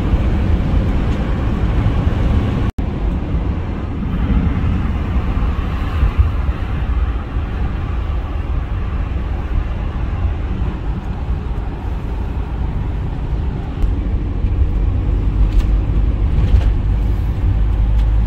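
Steady road noise from inside a moving car, with a heavy low rumble. A split-second dropout comes nearly three seconds in.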